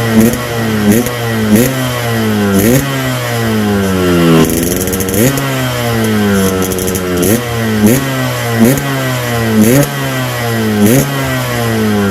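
Yamaha RX-King's 135 cc two-stroke single revved in quick throttle blips through a gutted ('bobok') exhaust, about a dozen times; each blip rises sharply and falls away slowly.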